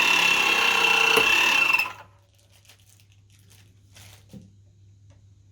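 Electro-hydraulic crimper pump running with a steady high whine as it pressurises the crimp head towards 700 bar. It cuts off abruptly about two seconds in, the sign that the pump has reached pressure and automatically released. Afterwards there is only a faint low hum and a few light clicks.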